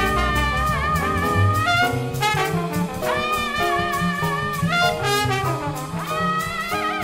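Big band swing jazz: the horn section plays phrases together in held notes with vibrato over a bass line.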